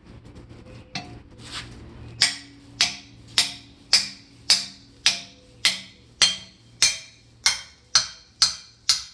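Hammer blows on steel, a steady series of about thirteen sharp strikes roughly two a second, each with a brief metallic ring, after two lighter taps. Typical of knocking at the rear axle's old brake bracket to free it once it has been cut.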